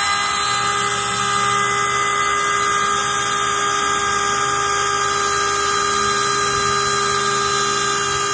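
Small battery-powered electric air pump running at a steady high whine, inflating a packraft through its valve.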